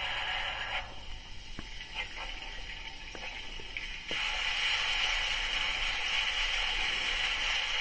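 Water-fill sound effect from the DCC sound decoder in a Rapido L&M 'Lion' model locomotive, played through the model's small speaker: a steady rush of water that breaks off under a second in, leaving a quieter stretch with a few light clicks, then starts again about four seconds in.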